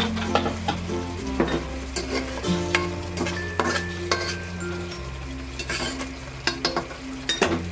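A spatula stirs chicken pieces through a simmering sauce in a pan, with repeated sharp scrapes and knocks against the pan over a steady sizzle. Soft background music with held low notes plays underneath.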